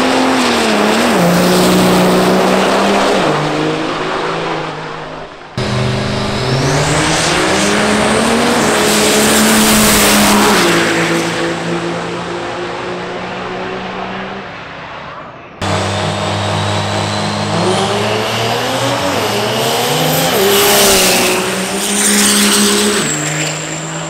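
Diesel drag trucks running under full power in three back-to-back clips, each a loud engine note whose pitch holds, then steps down, with a high thin whistle rising above it in the later two. The sound cuts abruptly twice, about five seconds in and again past the midpoint.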